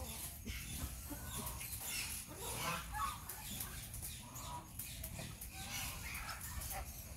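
Chickens clucking, a run of short repeated calls.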